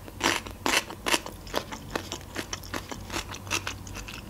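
Raw cucumber stick being bitten and chewed: a quick run of crisp crunches in the first two seconds, then softer, smaller chewing crunches.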